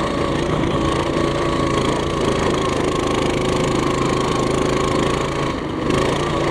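Coleman CT200U-EX pit bike's small single-cylinder four-stroke engine running hard at a steady, high pitch, held near its top speed under load on a dirt-track climb. It eases off briefly a little before the end, then picks up again.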